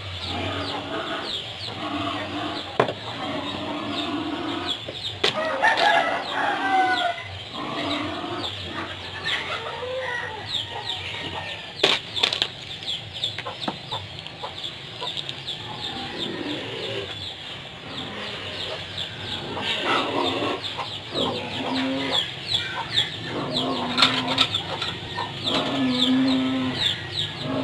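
Chickens clucking and calling over and over in the background, with a few sharp taps of a kitchen knife on a plastic cutting board.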